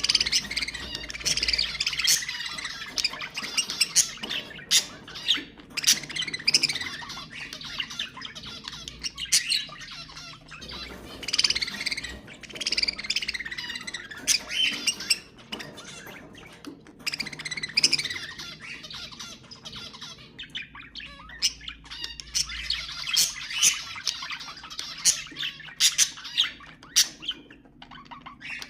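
Budgerigars chattering in a continuous, rapid warble laced with sharp squawks and clicks, swelling and easing in waves every few seconds.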